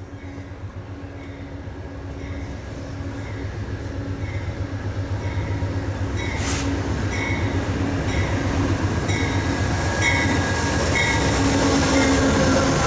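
Amtrak passenger train led by a GE Genesis diesel locomotive approaching, its rumble growing steadily louder. A bell rings at an even pace, about one and a half strokes a second.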